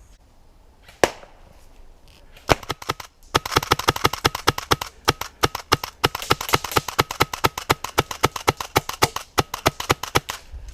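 Airsoft gun firing: two single shots, then a long run of sharp, rapid shots at about seven a second, with a few brief pauses.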